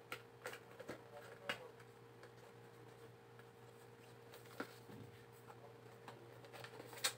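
Faint scattered clicks and taps of a small cardboard product box being handled and opened by hand, with a sharper tap near the end, over a steady low hum.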